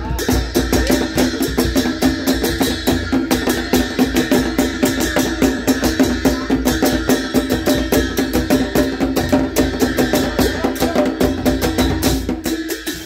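Live folk music: a large barrel drum beaten in a fast, even rhythm, under a melody of long held notes.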